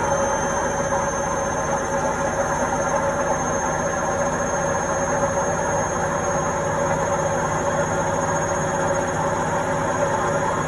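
Indesit washing machine running on a quick wash, a steady machine hum with a faint high whine held over it.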